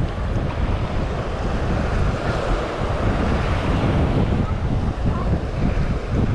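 Wind buffeting the microphone in uneven gusts over the steady wash of surf breaking on the beach.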